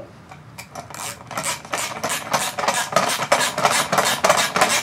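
Socket ratchet with a 10 mm socket clicking in quick, uneven strokes as it tightens a nylon lock nut onto a license-plate screw. The clicking starts about half a second in.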